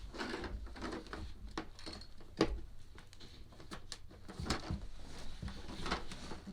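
Scattered clicks, knocks and rustling of plastic and rubber parts being handled as the blower's rubber flexible tube is fitted onto its notched fitting, with one sharper click about two and a half seconds in.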